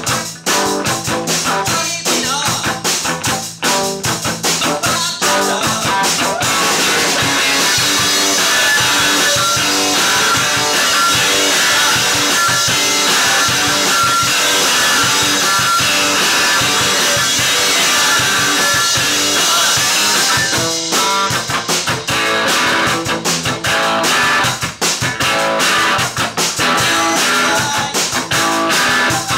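Rock band playing live: electric guitar over a drum kit beat. About six seconds in the playing turns into a denser, steady wall of sound without clear beats. The regular drum hits come back about twenty seconds in.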